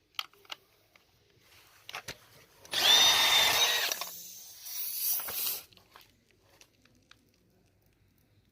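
A power tool runs in two short bursts: a loud one about three seconds in lasting just over a second, and a quieter, shorter one soon after. Scattered light clicks of handling come before them.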